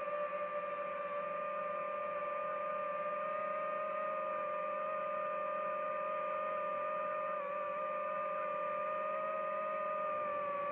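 DJI FPV drone's motors and propellers whining at a steady pitch, with a hiss of rushing air underneath. The pitch drops slightly near the end.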